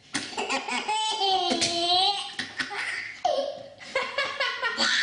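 A baby laughing hard in repeated fits, including one long drawn-out squeal, in reaction to a sneeze.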